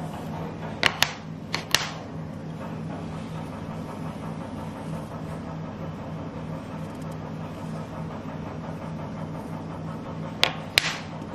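Wooden baby brushes being handled and set down on a wooden tray, giving a few sharp wooden clacks in two pairs about a second in and another pair near the end, over a steady low hum.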